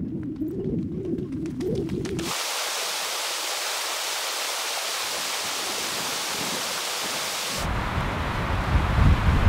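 A low wavering sound for about two seconds, then the steady rushing hiss of a river's running water. Near the end a mountain stream's rush carries on under a strong low rumble.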